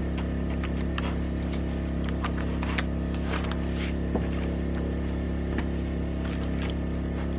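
A steady low mechanical hum, with scattered sharp knocks and clacks of split firewood being handled and loaded.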